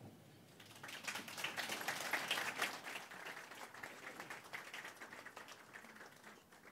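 Audience applauding: many people clapping, starting about half a second in, loudest around two seconds, then dying away.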